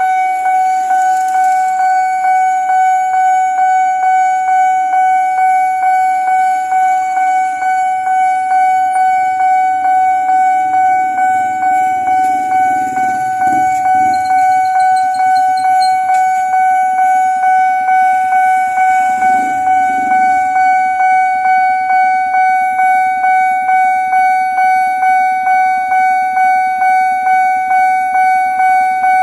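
Railway level-crossing warning bell ringing on and on, a steady high tone struck about three times every two seconds, the signal that the crossing barrier is closed for a coming train. A vehicle passing gives a short low rumble twice, about midway and about two-thirds through.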